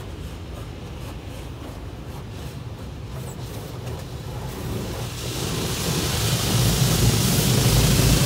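Automatic car wash heard from inside the car: a steady low rumble of the wash machinery with light spattering on the glass, then from about five seconds in a rising hiss of water spray hitting the car, growing louder toward the end.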